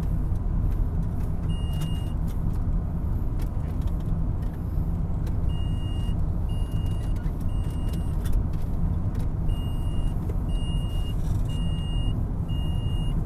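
Steady road and engine rumble inside a car cabin at highway speed. A short, high electronic warning beep from the car sounds once early, then in runs of several beeps a little under a second apart from about halfway through.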